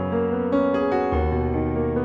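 Background piano music: gentle chords with bass notes changing every second or so.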